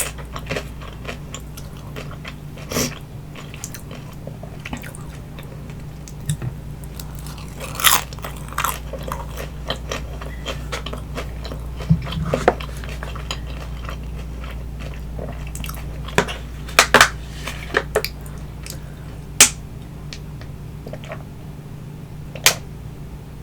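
Close-miked biting and chewing of crispy baked vegetable spring rolls: irregular crunches and crackles of the fried wrapper with wet mouth sounds between them, over a steady low hum.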